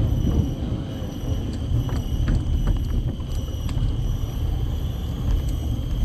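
Bicycle tyres rolling over the planks of a wooden boardwalk: a steady low rumble with scattered clicks and knocks as the wheels cross the boards.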